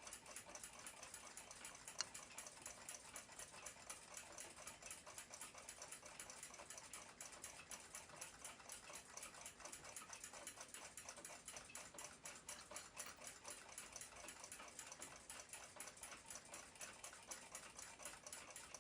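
Faint, steady, rapid ticking of a clock, several ticks a second, with one sharper click about two seconds in.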